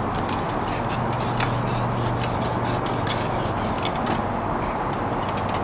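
A pug's claws scrabbling on the wooden slats of a climbing wall, irregular sharp clicks and scrapes over a steady hiss and low hum.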